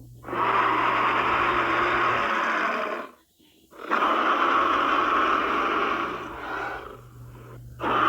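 Movie dinosaur roars for the Spinosaurus: two long roars of about three seconds each, separated by a brief gap. The second roar trails off quieter before another starts at the very end. A steady low hum sits underneath.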